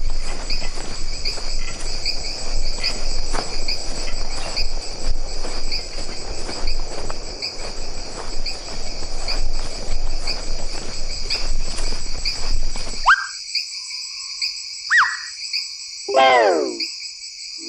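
Crickets chirping in a steady pulsing trill, a night-forest ambience, over a rustling noise that drops away about two-thirds of the way through. Near the end, a few short calls sweep down in pitch.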